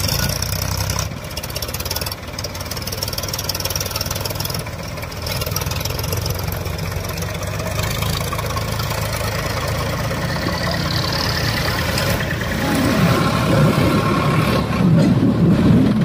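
Sonalika DI 740 III tractor's diesel engine running under load as it pulls a trolley heaped with soil through soft sand, growing louder near the end.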